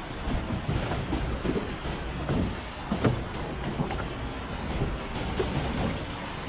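Wind rumbling on the microphone over choppy sea water lapping against the side of a small boat, with a few short sharp slaps of water against the hull.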